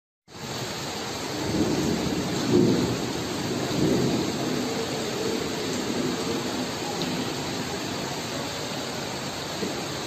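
Heavy downpour in a thunderstorm: steady rain, with low rumbling swells of thunder between about one and four seconds in.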